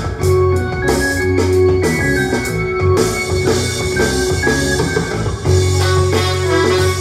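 Loud music playing for a breakdance battle, with a steady beat and a strong bass line.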